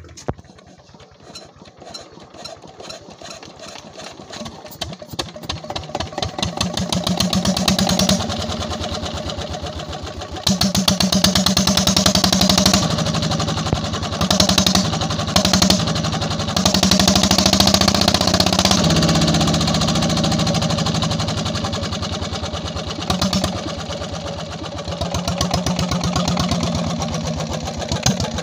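Single-cylinder Petter-type stationary diesel engine starting up, just fitted with a new injector nozzle and pump plunger. Its firing beats quicken and grow louder over the first several seconds, then it keeps running with a regular beat, rising and falling a little.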